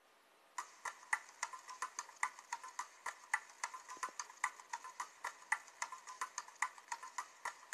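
A steady, even run of light clicks, roughly three to four a second, starting about half a second in.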